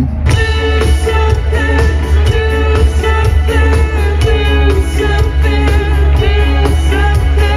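Background music with a steady beat, heavy bass and held melodic notes, starting abruptly a moment in.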